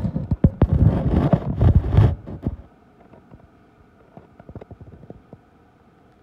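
Handling noise from a phone camera bumping and rubbing against a Cessna 150 flap: a dense run of knocks and low rumbling for about two and a half seconds, then a few faint ticks.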